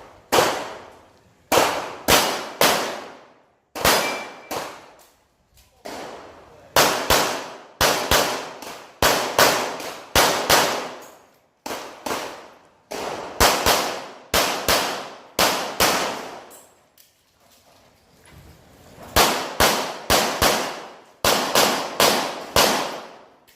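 Rapid pistol fire during an IPSC stage run: sharp shots in quick pairs and triples, each with a ringing echo. Short breaks between strings, and one longer pause past the middle, as the shooter moves or reloads.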